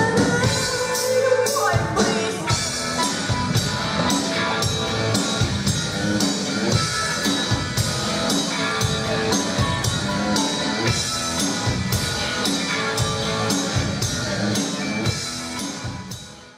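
Live rock band playing, with a drum kit keeping a steady beat under electric guitars; the music dies away near the end.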